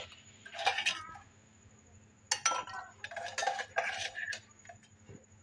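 Ice cubes dropped into two stemmed drinking glasses, clinking and knocking against the glass. There is a clink just after the start, and a busier run of knocks and brief ringing from about two seconds in.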